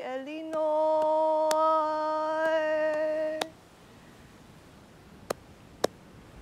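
One long held note with many overtones, steady in pitch after a slight rise at its start, cut off about three and a half seconds in. After it comes a quiet stretch with two faint clicks.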